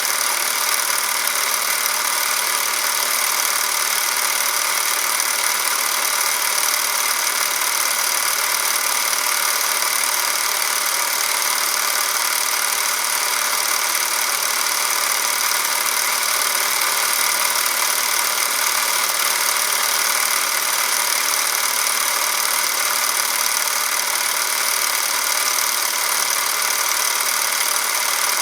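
Super 8 film camera, a Porst Reflex ZR 422, running steadily as it films: the motor and film transport make a continuous high whir.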